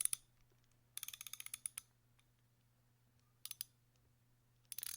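Leatherman Surge multitool being handled, giving quick runs of small metallic clicks: a rapid rattle of about ten clicks about a second in, two clicks a couple of seconds later, and another short run near the end, over a faint low hum.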